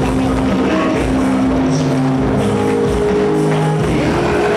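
Church worship music with a steady drum beat under held keyboard or bass notes.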